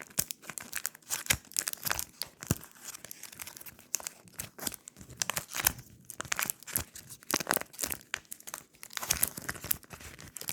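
Irregular crinkling and clicking of plastic being handled: a small fidget toy and its wrapping turned over in the hands.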